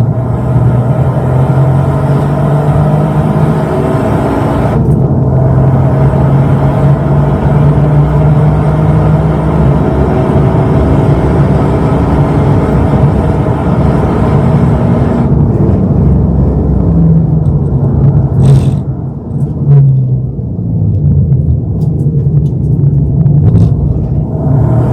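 Toyota GR Yaris's turbocharged 1.6-litre three-cylinder engine pulling hard around a race track, its pitch holding, then stepping and changing with the gears and throttle. About 18 seconds in there is a sharp crack, followed by a brief dip and swell in level.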